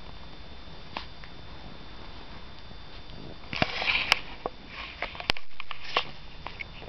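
Puppy sniffing and snuffling with its nose in a fleece blanket close to the microphone, in a flurry of quick sniffs about halfway through. A few sharp clicks and rustles come with it.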